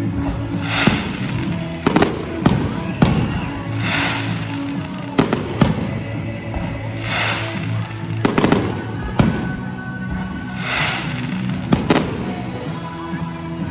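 Fireworks show: sharp bangs every second or two, with several longer crackling hisses as shells burst, over music playing throughout.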